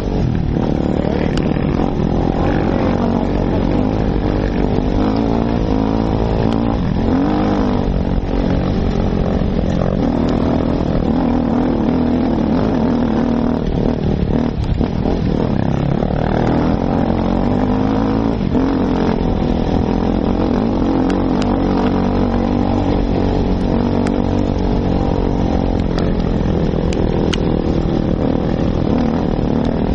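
Enduro motorcycle engine running under constantly changing throttle, its pitch rising and falling as the bike rides over a rough dirt track.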